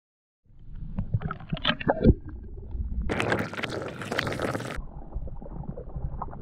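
Underwater camera going into the water: a few knocks and clatter, then a loud splashing rush about three seconds in as it breaks the surface, after which it settles into a muffled underwater gurgling rumble.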